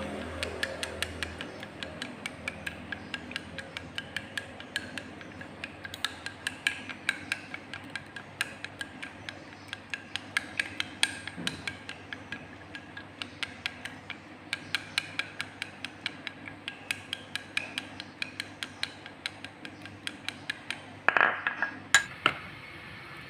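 A utensil clicking quickly and steadily against a bowl, about three strokes a second, as eggs are beaten; a louder scrape near the end.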